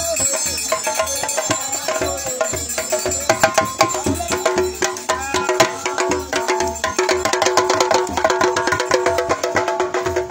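Traditional Yoruba procession music: drums keep a steady beat about twice a second under dense clicking hand percussion, with voices singing along.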